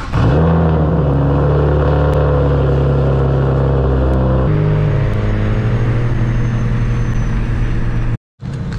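BMW E92 335i's N54 straight-six engine catching with a quick flare, then holding a steady, loud idle; its note drops slightly about four and a half seconds in.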